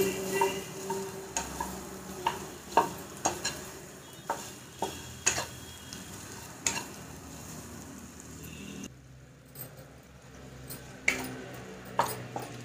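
Spatula scraping and tapping against a nonstick kadhai as lumps of homemade mawa (khoa) are broken up and stirred while it heats, in irregular strokes. A soft sizzle runs underneath and drops away about three-quarters of the way through.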